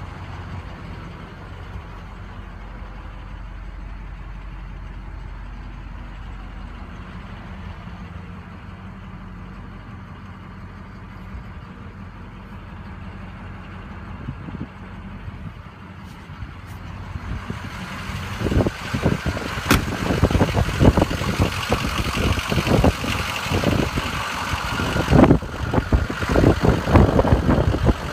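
Ford 6.0 Power Stroke turbo-diesel V8 idling, a steady low hum heard from inside the cab. About two-thirds of the way through, louder gusty rumbling and irregular knocks take over, from wind buffeting and handling on the microphone outside.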